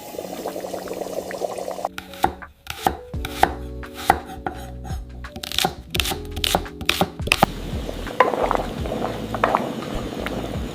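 Knife chopping food on a cutting board: runs of quick, sharp chops in the middle stretch, with crackly rustling handling before and after.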